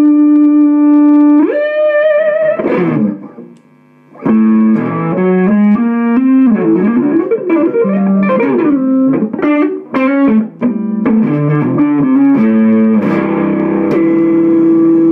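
Overdriven Epiphone Dot semi-hollow electric guitar, played through a Marshall Guv'nor Plus pedal into a ZT Club amp. A long sustained note jumps up and slides back down, then after a short gap come fast two-handed tapped runs, ending on another long held note.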